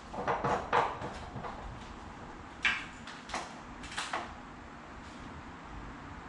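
A few short knocks and clunks of parts being handled: a quick cluster in the first second, then single knocks about three and four seconds in.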